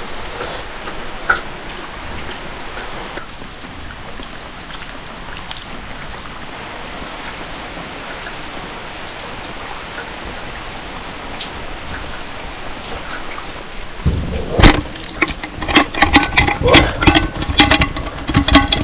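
Steady rain falling on a village yard and roofs. About fourteen seconds in, a run of loud, irregular knocks and taps close to the microphone takes over until near the end.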